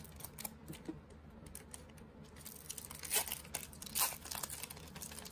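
Foil wrapper of a trading-card pack being torn open and crinkled, faint at first, then a few sharper crackles about three and four seconds in.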